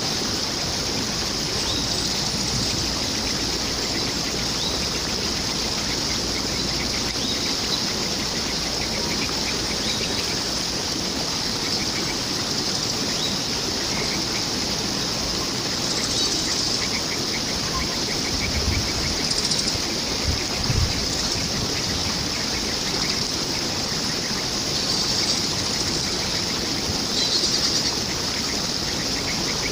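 Steady rush of flowing water, with birds chirping faintly in quick high series now and then. Two short low bumps sound near the middle.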